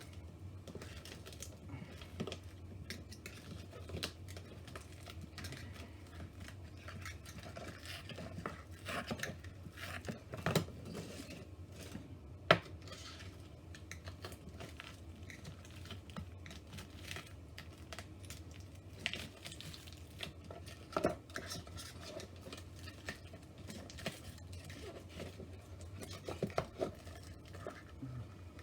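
Small tools and fingers clicking, scraping and tapping on an opened iPhone 8 as its battery is worked loose and pried out, with one sharp click about twelve seconds in. A steady low hum runs underneath.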